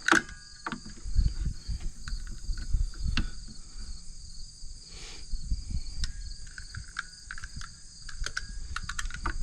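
Scattered small clicks and knocks of an aluminium UTV phone-mount clamp being handled and adjusted, with low rumbles, over a steady chorus of crickets.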